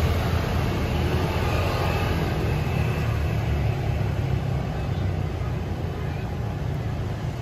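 Steady low rumble of road traffic, easing slightly toward the end.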